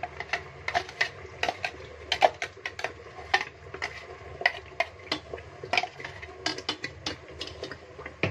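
Slotted spatula knocking and scraping against a steel blender jar as thick ground onion-tomato-garlic paste is emptied into a pot of hot oil, then stirring it in the pot: repeated irregular sharp clacks over a low steady hum.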